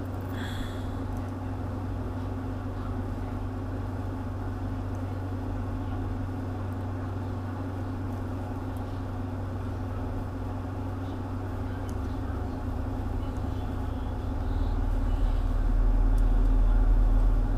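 Steady low mechanical hum, with a deeper rumble swelling in the last few seconds and then dropping away.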